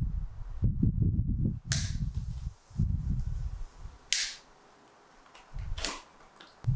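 Handling noise from unpacking and moving bike parts: irregular dull bumps and thuds, with three short, sharp snaps or clacks spread through.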